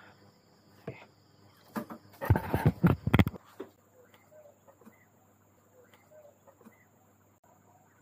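A burst of clattering knocks and rustling lasting about a second, a little over two seconds in, after a couple of single knocks; then faint scattered chirps.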